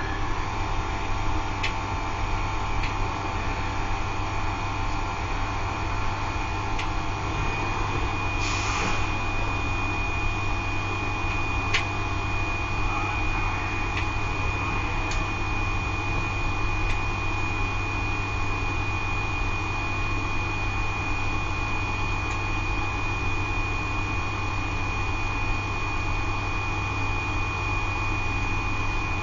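Wet-rotor circulation pump on a Laddomat 21 wood-stove charging unit running steadily: a low electric hum with a thin high whine over it, and a few faint clicks.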